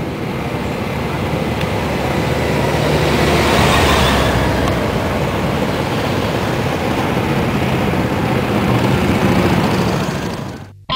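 Many motorcycle engines rumbling as a large group of bikes rides past, swelling twice as bikes go by. The sound drops away just before the end.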